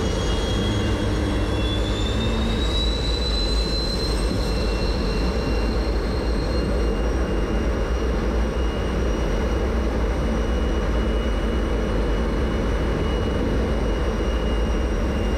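MiG-17 jet engine running steadily at taxi power, a constant rush with a high compressor whine that rises slightly in pitch about two to three seconds in.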